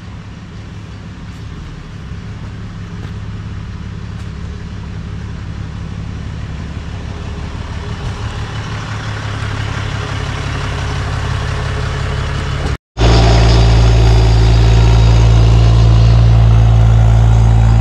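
Pickup truck's engine drawing closer and growing steadily louder. After an abrupt cut, a U17 mini excavator's engine runs loud and steady while its blade pushes dirt.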